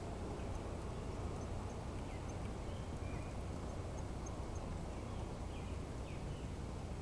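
Gauge One model passenger cars rolling past on the track, a steady low rolling noise of their metal wheels on the rails.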